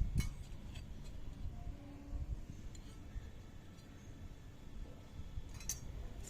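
Small toy kitchen pieces being handled and unpacked: low rustling and bumping with a few light clicks, a sharper click near the end.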